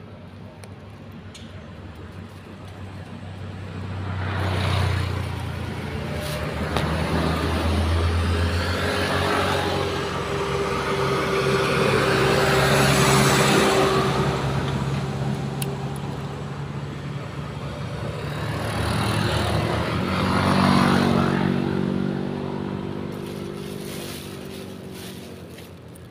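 Motor vehicles passing along the road, the engine and tyre noise building and fading, loudest about halfway through and again a few seconds before the end.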